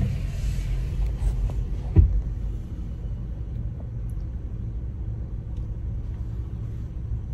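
Steady low rumble of a car heard from inside the cabin, with a short knock at the start and a louder thump about two seconds in.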